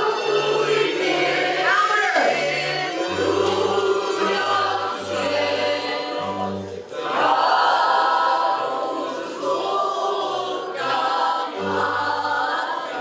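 A mixed choir of children and adults singing a Christmas carol (kolęda) together, over steady low bass notes that step from pitch to pitch.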